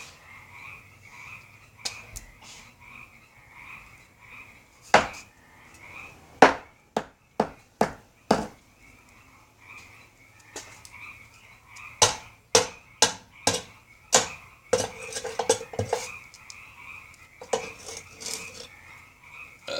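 Hammer blows striking a microwave oven. They come in two runs of about half a dozen hits each, with lighter knocks after them. A steady pulsing trill runs underneath.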